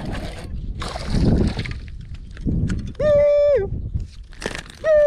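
Noisy water and handling bursts as a hooked largemouth bass is reeled to the boat and swung aboard. These are followed by two loud drawn-out calls, about three seconds in and again near the end, each held at one pitch and sliding down at the end.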